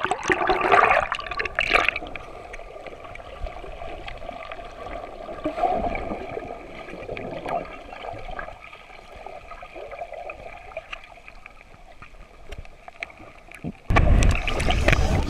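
Splashing at the sea surface for about the first two seconds. Then comes the muffled gurgling of an action camera held underwater in shallow seawater. A loud sound cuts in near the end.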